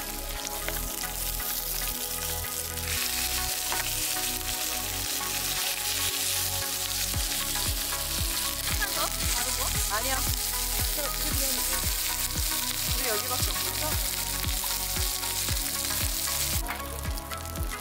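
Meat pieces and whole garlic cloves sizzling as they hit and fry on a hot round griddle pan, spread around with metal tongs. The sizzle grows louder about three seconds in and falls away sharply near the end.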